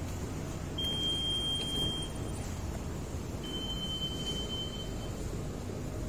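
Two long, steady electronic beeps, the second slightly lower in pitch and a little longer, over a steady low rumble of background noise.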